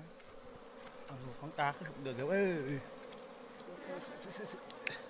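Honeybees buzzing steadily around their comb in a hollow tree trunk being torn open, a disturbed colony. A short voice breaks in about two seconds in.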